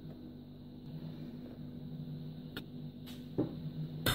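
Steady low hum with a few faint clicks, then near the end a metal spoon knocks sharply against the stainless steel bowl of a cooking food processor as cornstarch is tipped in.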